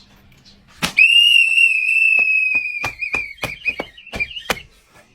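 A whistle blown in one long, steady, shrill blast of about two seconds. It then wavers and breaks up for another second and a half, with a string of sharp smacks or knocks through that second half. A single sharp knock comes just before the blast starts.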